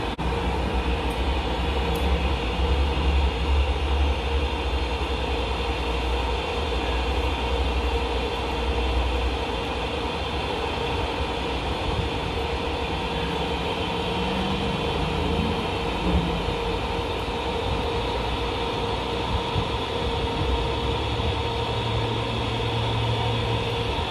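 DC TIG welding arc on stainless steel from a Unitor UWI 500 TP inverter welding machine: a steady hiss with a constant hum while filler rod is fed into the weld pool.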